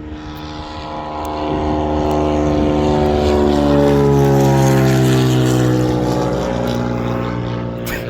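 Small propeller airplane flying low past, its engine note swelling to a peak and then dropping in pitch as it goes by.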